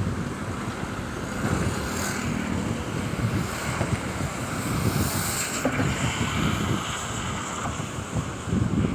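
Rushing floodwater pouring through the dam's open spillway gates, a steady roar partly covered by wind buffeting the microphone.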